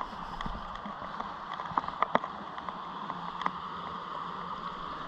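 Steady rush of flowing creek water, with a few sharp clicks about two seconds in and again later.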